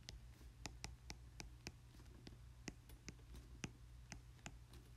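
Faint, irregular clicks of a stylus tip tapping on a tablet's glass screen while handwriting, a few clicks a second, over a low steady hum.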